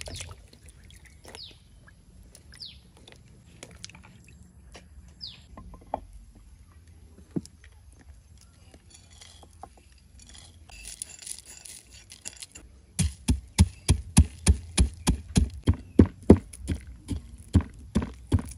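A wooden pestle pounding in a mortar, starting about two-thirds of the way in as regular heavy thuds, about three a second, crushing roasted peanuts.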